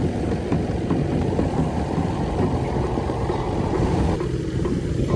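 An engine running steadily, its sound sitting mostly low in pitch.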